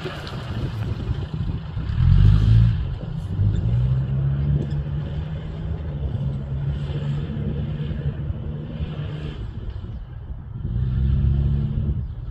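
Engine of a competition off-road safari vehicle revving hard as it is driven fast across a sandy course, its pitch shifting with the throttle. It gets louder about two seconds in and again near the end.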